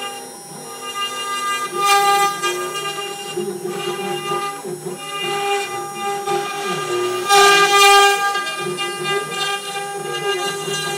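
CNC router spindle whining at a steady pitch while its bit routes a groove in a wooden board, with lower motor tones shifting in pitch as the machine moves. The cutting noise swells about two seconds in and again near eight seconds.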